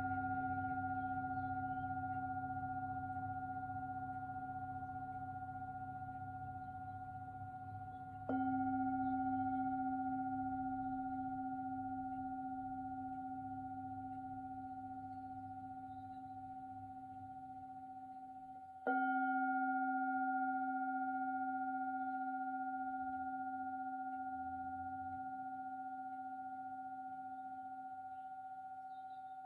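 Tibetan singing bowl tuned to the note C, struck twice, about 8 and 19 seconds in. Each strike sets off a long ringing tone with a few higher overtones that fades slowly until the next strike.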